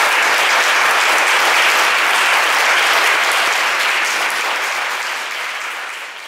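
Steady applause from a crowd, choir members among those clapping, fading away over the last couple of seconds.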